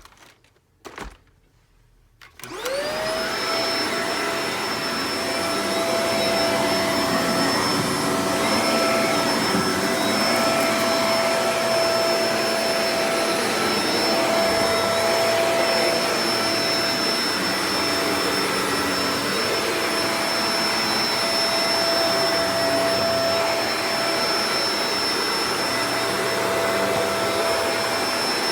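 A couple of clicks, then the Shark Professional Powered Lift-Away DLX NV586 vacuum cleaner is switched on about two seconds in: its motor spins up quickly to a steady high whine over loud airflow noise and keeps running.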